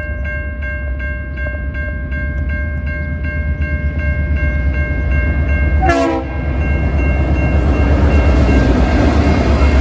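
Grade-crossing bell ringing steadily as a Norfolk Southern diesel locomotive approaches and passes the crossing. The locomotive gives a short horn blast about six seconds in, and its engine rumble and the sound of the train on the rails grow louder near the end.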